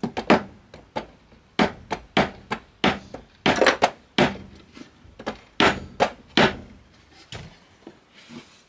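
Claw hammer tapping a wooden strip, a run of about twenty sharp taps at an uneven pace, lighter toward the end. The taps press cut-off panel pins into the wood to mark where the holding pins will go.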